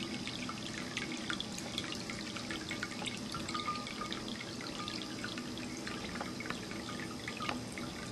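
Ceramic cat drinking fountain running: water spills steadily from the central dome into the glazed bowl with a continuous trickle and many small drips and splashes.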